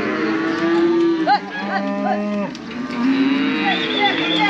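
A herd of penned cattle mooing, several long calls overlapping one another.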